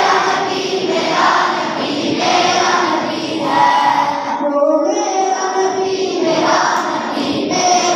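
A boy singing a naat, a devotional poem in praise of the Prophet, in long held phrases, amplified through a microphone and loudspeaker.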